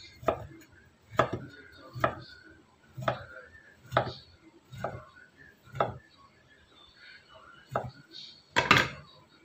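Chef's knife chopping through slices of tempeh and striking a wooden cutting board, about one stroke a second, nine strokes in all with a short pause before the last two; the final strike near the end is the loudest.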